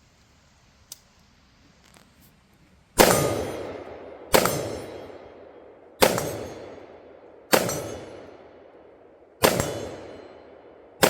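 Gunshots fired one at a time at a steady, deliberate pace, five of them about one and a half to two seconds apart starting about three seconds in, with a sixth at the very end. Each shot has a long echoing tail.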